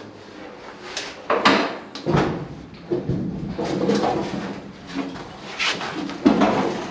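Metal clunks, knocks and scrapes inside a steel shipping container as a man clambers over a vintage tractor, with sharp knocks about a second in, again half a second later, and near the end.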